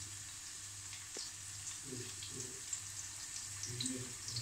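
Sliced onions frying in hot oil in a pan: a soft steady sizzle with scattered small pops.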